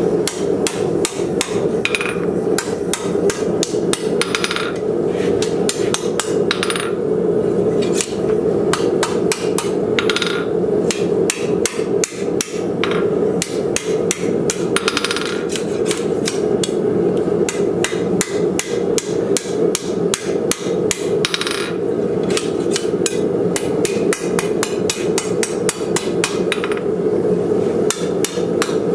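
Hand hammer striking red-hot 3/16-inch by 1-inch steel flat bar on an anvil in quick, even blows, about three a second, curling the bar's end into the rolled barrel of a forged hinge. A steady low hum runs underneath.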